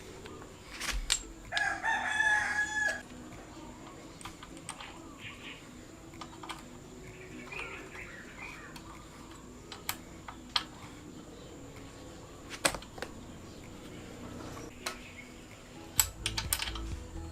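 A rooster crows once, about two seconds in, a single call of about a second. After it come scattered sharp clicks and taps.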